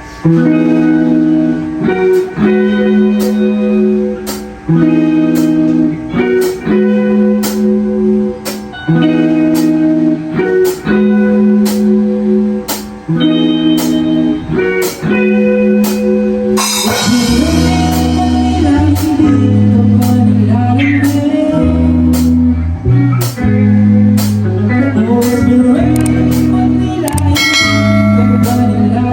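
A live band playing: guitar chords over a steady drum beat, with the bass coming in about halfway and the band growing fuller.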